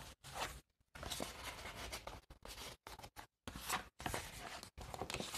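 Faint, irregular rustling and scraping of paper tags being slid into the tight paper pockets of a tag holder.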